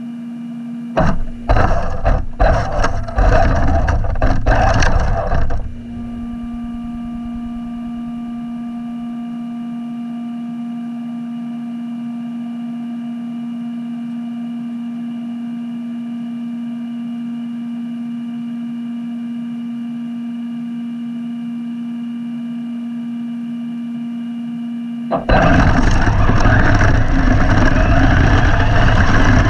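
Team Corally Shogun V2 electric RC car's drive noise, picked up close: loud, ragged surges for the first few seconds, then a steady hum for about twenty seconds, then loud continuous running noise again for the last few seconds.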